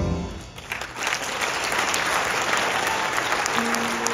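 An audience clapping: the last note of the music dies away at the start, and about a second in a steady, dense applause rises and carries on.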